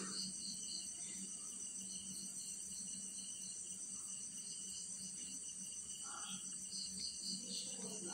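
Electric hand mixer running at a steady speed with a faint, even whine, its beaters whisking eggs and sugar in a plastic bowl.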